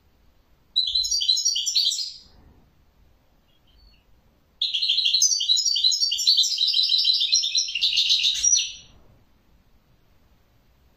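European goldfinch singing in two bursts of rapid, jangling twitters: a short phrase about a second in, then a longer phrase of about four seconds from just under halfway through.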